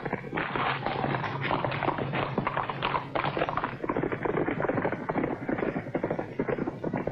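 A horse galloping: a rapid, uneven run of hoofbeats on hard ground.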